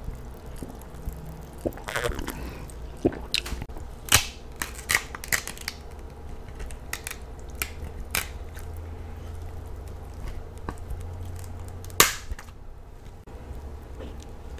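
King crab leg shells cracked and snapped apart by hand, a string of sharp cracks with the loudest near the end, mixed with close-up chewing and biting.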